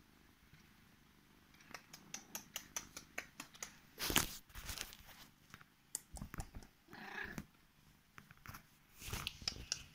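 Korat cat purring close to the microphone while being stroked, over many small sharp clicks and rustles of handling and bedding. A loud rustle about four seconds in, as something brushes the phone.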